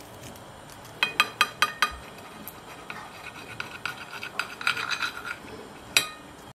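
Table knife sawing through crispy toast on a ceramic plate: a quick run of about six sharp clicks a second in, then rasping strokes with the plate ringing faintly, and one sharp click near the end.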